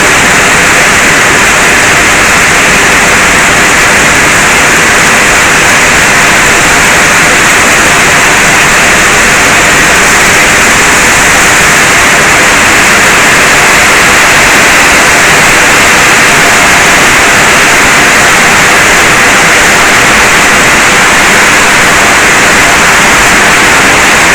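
Heavy rain falling: a loud, steady hiss with no breaks.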